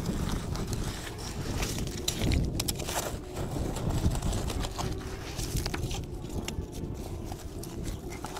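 Digging forks driven into wet mud and stones, with scattered scrapes and knocks of the tines on stone over a steady low rumble.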